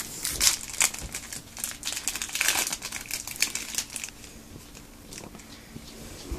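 Foil wrapper of a Yu-Gi-Oh booster pack crinkling and crackling in the hands as the pack is opened and its cards are pulled out. The crinkling dies down about four seconds in, leaving only faint rustles.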